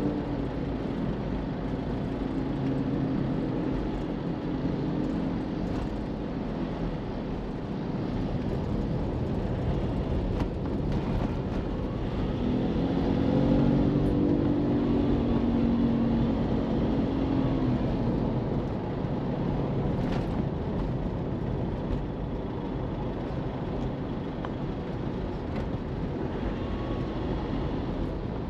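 Car driving through city traffic: steady road and engine noise. An engine hum swells and fades near the start and again, louder, about halfway through.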